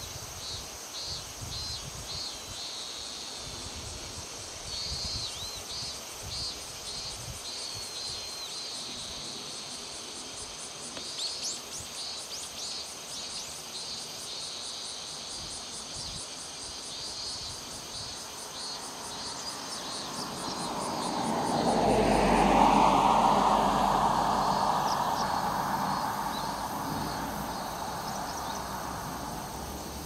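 Summer insects chirping in quick repeated pulses over a steady high buzz. From about twenty seconds in, a passing vehicle swells to a loud rush with a low rumble, peaks about two seconds later, then slowly fades.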